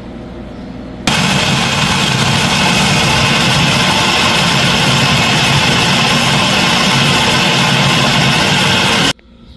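Mondial food processor running, its blade grinding cooked heart meat: the motor switches on abruptly about a second in, runs steadily and loudly for about eight seconds, and cuts off suddenly near the end.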